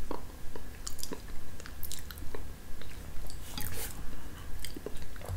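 Close-up mouth sounds of a man eating a spoonful of creamy yogurt: scattered small wet smacks and clicks as he tastes it. Near the end a metal spoon clicks against a ceramic plate as he scoops more.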